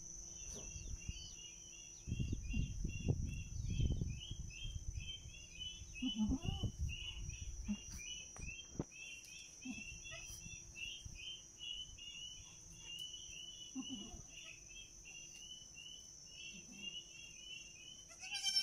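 A mother goat giving a few short, low bleats to her newborn kids, over the steady rapid chirping of insects. Low rumbling bursts come a couple of seconds in and again around six to eight seconds in.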